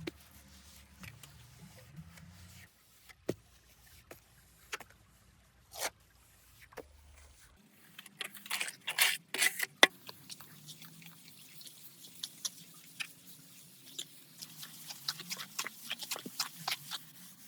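Scattered light clicks and knocks of small hard objects, with a louder cluster about eight to ten seconds in and a dense run of rapid small clicks near the end.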